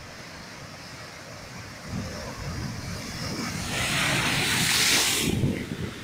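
Ocean surf breaking on a rocky shore: a steady wash of sea, then low rumbling as a wave builds from about two seconds in and crashes with a loud hiss of spray a little before halfway through the second half, stopping suddenly near the end.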